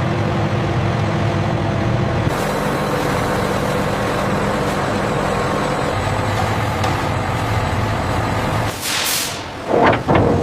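Woodworking factory machinery running steadily with a low hum. Near the end there is a short hiss, followed by a couple of sharp loud bursts.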